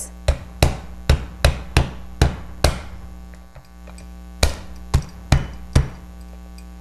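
Metal meat mallet knocking down on snow crab legs on a cutting board, lightly crushing the shells. Eleven sharp knocks, seven in a run, then a pause of nearly two seconds, then four more.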